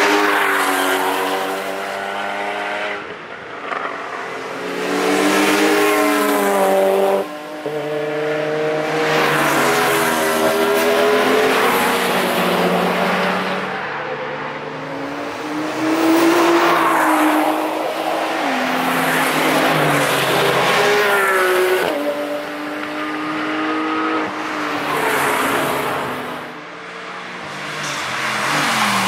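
Several high-performance sports cars driving past one after another. Each engine revs up and drops back in pitch through gear changes, and the sound swells and fades as each car comes and goes.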